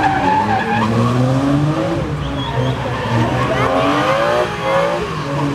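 BMW drift car's engine revving, its pitch rising and falling, while the spinning rear tyres squeal and skid through a smoky drift.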